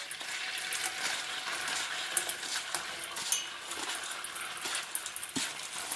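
Crushed caramel biscuit crumbs being stirred into melted butter in a pan, with a utensil scraping and clicking against the pan over a steady sizzle.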